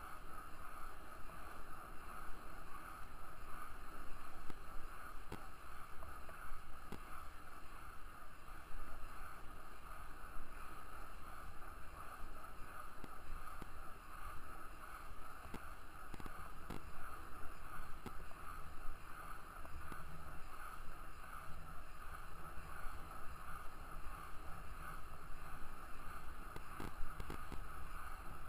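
Small freeline skate wheels rolling over asphalt: a steady rolling rumble with a constant higher whir over it, and a few light clicks.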